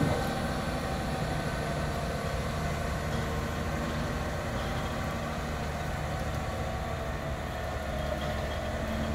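Sampo FR68 forwarder's diesel engine running steadily at low revs as the machine drives slowly away.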